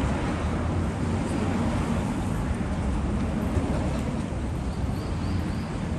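City street ambience dominated by road traffic: a steady rumble of passing vehicles' engines and tyres.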